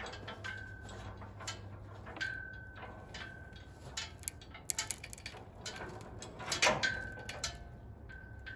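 Engine hoist rolling back over wooden boards with a 440 big-block engine hanging from it: scattered knocks and clinks, with a short high squeak now and then.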